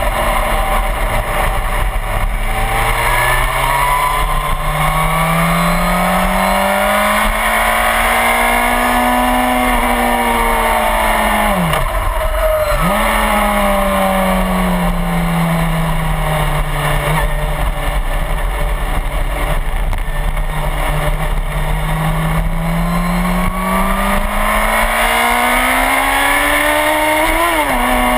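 Suzuki GSX-R1000 sportbike's inline-four engine pulling hard at track speed, with a steady rush of wind. The engine note climbs over the first several seconds, dips sharply and comes straight back about twelve seconds in, sags slowly, climbs again, then drops suddenly near the end as a gear changes.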